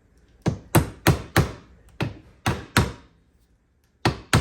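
A hammer tapping a U-joint bearing cap into the ATV prop shaft yoke, with sharp metallic strikes. There are runs of two to four taps, a pause about three seconds in, then the taps pick up again near the end.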